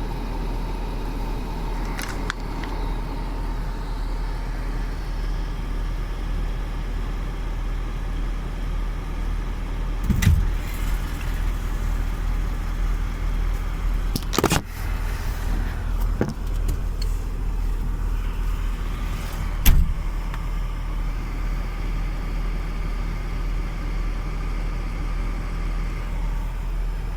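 Truck crane's engine running steadily with a low hum, broken by a few sharp knocks and clunks about ten, fifteen and twenty seconds in.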